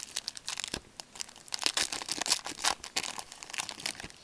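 Trading card pack wrapper being torn open and crinkled in the hands, a rapid irregular crackle.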